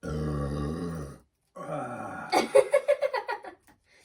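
A man's long, loud burp lasting about a second, the gas of a large bottle of fizzy Sprite gulped down and held in. A second burp follows, running into a choppy stretch of broken vocal sounds.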